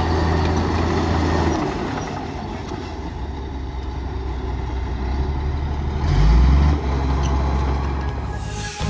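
Heavy earthmoving machine's diesel engine running, with a low surge in the engine note about six seconds in.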